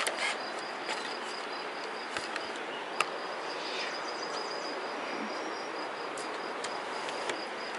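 Outdoor ambience: a steady rushing noise with a thin, high, pulsing insect trill held over it, and a single sharp click about three seconds in.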